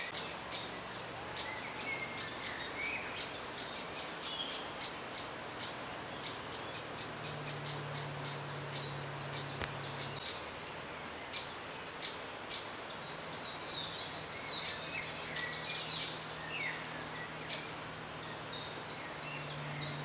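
Great spotted woodpecker nestlings calling from the nest, a constant run of short, sharp calls, over other birdsong. A low steady hum comes and goes underneath.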